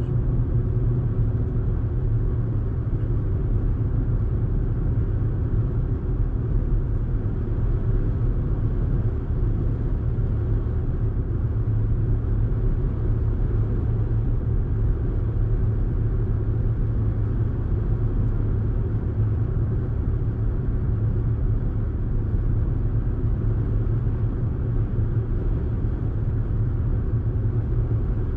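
Audi car driving at a steady speed: engine and road noise as an even, low rumble that holds without revving up or down.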